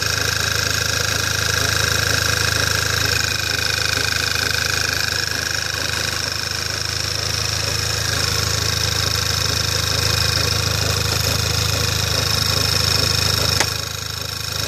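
Škoda Octavia A5 engine running, with a high rubbing squeak from the engine bay over the hum. The squeak comes on only about a minute after start-up and sounds as if something is rubbing. A sharp click near the end, after which it goes quieter.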